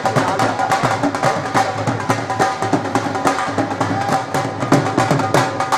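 Two Punjabi dhol drums played together in a fast, unbroken rhythm of stick strikes, several a second.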